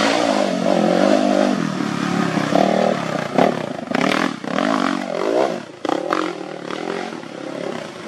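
Enduro dirt bike engine revving up and down in quick surges under load, with a few sharp knocks and clatter midway through.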